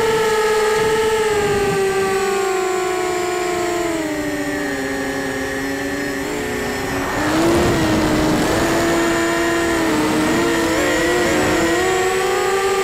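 QAV250 quadcopter's four brushless motors and propellers whining, several tones gliding steadily down in pitch as the throttle is eased off. About seven seconds in comes a rush of wind noise, then the motor pitch climbs and wavers as throttle is added again.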